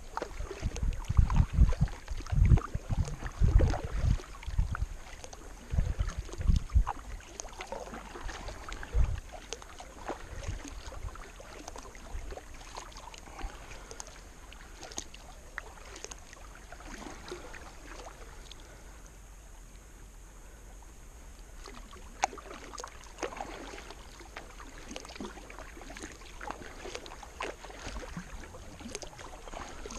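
Kayak paddle strokes dipping and splashing in calm river water. Heavy, irregular low thumps dominate the first several seconds, then the paddling goes on more quietly, with light splashes.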